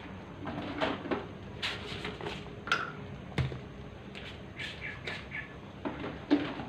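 Small birds chirping in scattered short calls, with a quick run of three high notes about five seconds in, over a faint steady hum.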